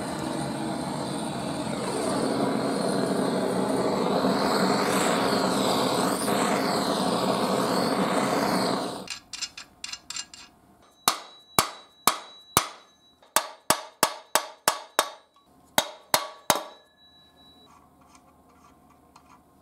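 Gas blowtorch hissing steadily for about nine seconds as it heats a Stihl TS 420 crankcase half to loosen a stuck crankshaft main bearing, then cut off. About a dozen sharp, ringing hammer knocks on the case follow to drive the bearing out.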